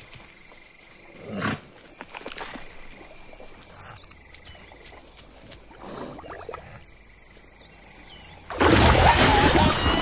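Cartoon savanna ambience: a faint repeating insect-like chirp and a few soft animal sounds while zebras drink at a waterhole. About eight and a half seconds in, a sudden loud splash as a crocodile lunges out of the water, with animal cries as the zebras scatter.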